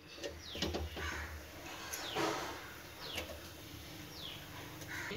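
A bird calling in short falling whistles, about four times, over a low steady hum, with a few light clicks in the first two seconds.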